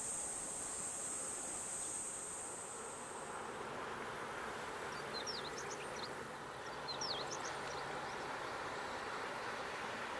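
Cicadas buzz steadily for the first few seconds, then stop. A few short high bird chirps follow in the middle. A low, steady engine hum from a small sightseeing boat comes in during the second half.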